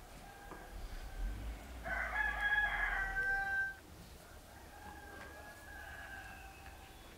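A rooster crowing: one loud crow about two seconds in, lasting under two seconds, with fainter crows before and after it from further away.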